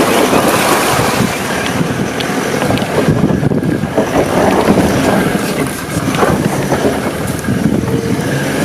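Water rushing and splashing against a truck as it drives through a water crossing.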